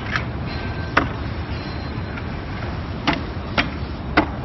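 Sharp clicks and knocks on wooden dance-floor panels as they are handled and stepped on: six in all, the last four about half a second apart. A steady low outdoor rumble runs underneath.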